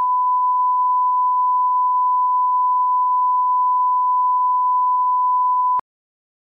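Steady 1 kHz line-up test tone of the kind that runs with colour bars as an audio reference level: one unchanging beep that cuts off suddenly near the end.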